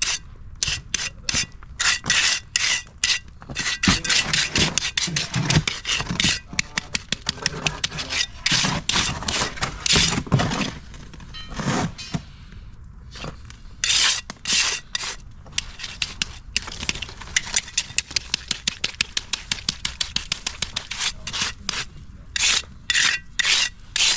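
Steel trowel scraping and smoothing wet concrete along a paver edge: many short rasping strokes, irregular and at times about three to four a second.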